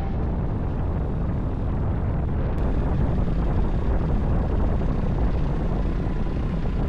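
Steady rushing wind noise with a deep rumble underneath, as heard from a moving motorcycle.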